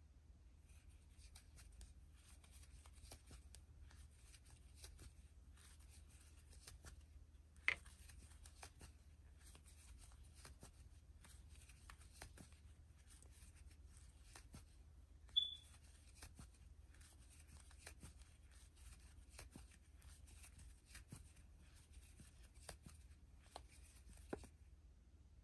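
Faint, close rustling and soft ticking of yarn and a crochet hook as stitches are worked. A sharper click comes about a third of the way in, and a brief high squeak a little past halfway.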